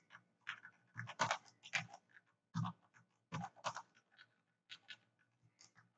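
Computer keyboard being typed on: a dozen or so faint, separate key clicks in an uneven rhythm.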